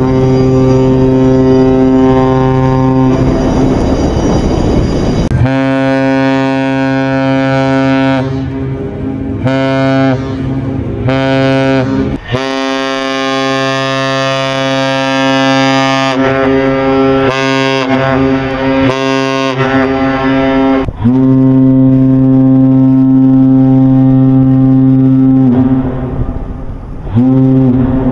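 Cargo ship horns sounding a series of blasts, long ones and short ones, each a deep steady note with a rich stack of overtones. The horn changes a few times, as one ship's horn follows another's.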